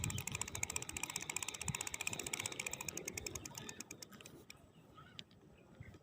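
Fishing reel being cranked, a fast, even ratchet-like clicking of the reel's gearing as line is wound in; it stops about four seconds in.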